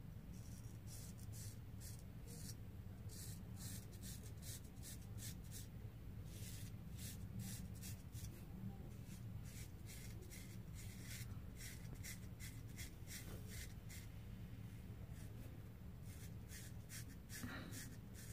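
Art of Shaving straight razor scraping through lather and beard stubble in short strokes, a quick run of crisp, faint scratches, over a low steady hum.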